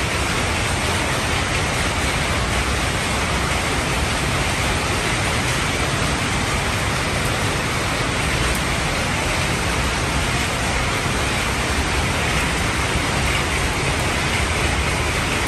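Fabric foil printing machine running steadily, its rollers, motors and film web giving an even rushing noise with no rhythm or knocks.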